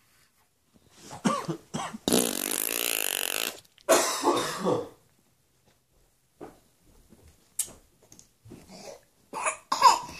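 Baby vocalizing: a few short sounds, then a long, harsh screech about two seconds in, a falling voiced sound right after, and scattered quieter babble with a louder squeal near the end.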